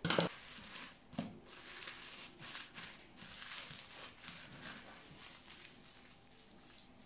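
Plastic cling film crinkling and rustling as a wrapped roll is rolled back and forth under the hands on a stone countertop, with a sharp click at the start and another about a second in.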